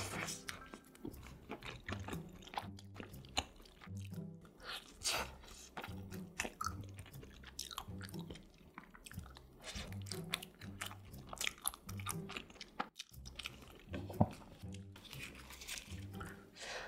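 A person chewing mouthfuls of soft steamed pizza bun (pizza hoppang) close to the microphone, with many wet mouth clicks and smacks.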